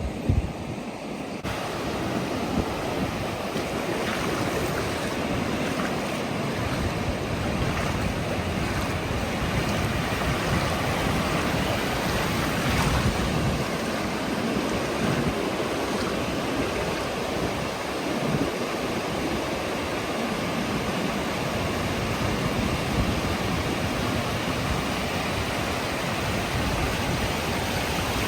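Ocean surf washing onto the beach, a steady rushing noise, with some wind on the microphone.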